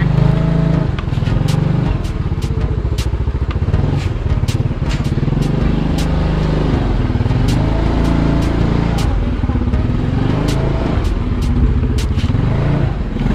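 Small motor scooter's engine running as it rides along, its pitch rising and falling a few times with the throttle, with scattered sharp clicks and rattles at irregular intervals.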